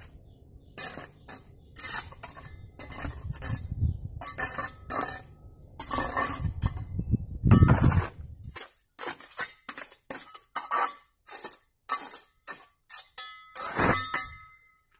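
Steel trowel scraping and clinking against a metal tub while scooping out dry sand-and-cement mix and scattering it over paving. A run of short, irregular scrapes, some ringing briefly.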